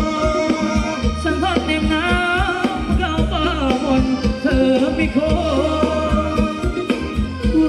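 Live band playing Thai ramwong dance music: a singer's wavering melody over heavy bass and a steady drum beat, played loud through a PA.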